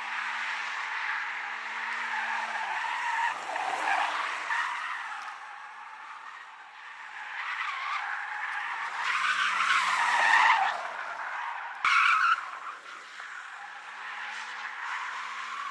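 A BMW doing donuts: its tyres squeal continuously while the engine revs beneath, its pitch rising and falling. The squeal is loudest about ten seconds in, with a short sharp burst soon after.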